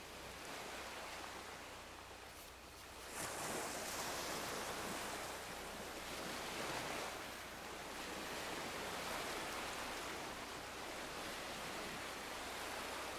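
Ocean surf washing onto a sandy beach, growing louder about three seconds in and then swelling and easing every few seconds.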